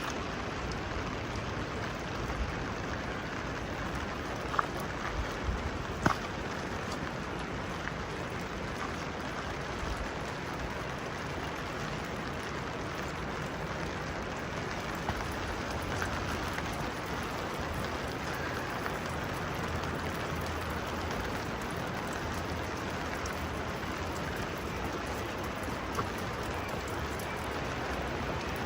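Steady rain falling, with a few sharper drip taps standing out, the loudest about six seconds in.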